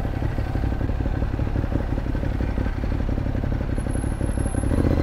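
2015 Ducati Monster 821's L-twin engine with its SC-Project exhaust, running steadily at low revs with an even, throbbing beat while the bike creeps along in slow traffic.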